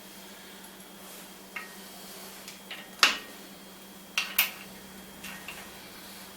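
Metal clinks and knocks of tools and parts as the gearbox is bolted onto a Rivett 608 lathe. A few scattered clinks: a light one about one and a half seconds in, the loudest sharp clink about three seconds in, and a pair of clanks just after four seconds.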